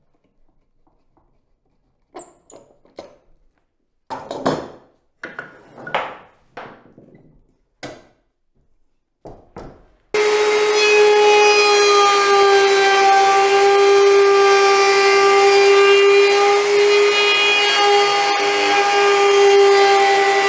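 A few knocks and scrapes of wooden boards being moved on a workbench. About halfway through, a router in a router table cuts in already at full speed and runs with a steady high whine as a bearing-guided bit shapes the edge of a softwood board.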